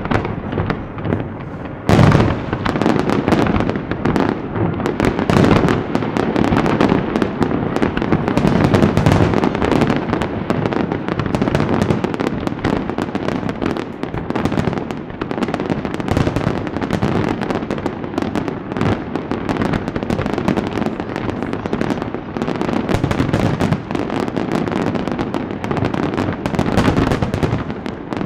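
Fireworks display: a dense, continuous barrage of shell bursts and rapid bangs, with an especially loud bang about two seconds in.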